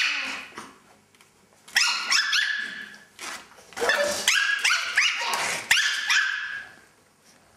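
Chihuahua pups yipping and barking in play, in quick high-pitched flurries: a short one about two seconds in and a longer one from about four seconds to six and a half.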